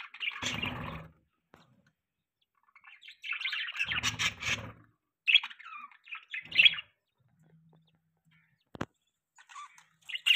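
Pet budgerigars chirping and chattering in short bursts with brief pauses between them. One sharp click comes near the end.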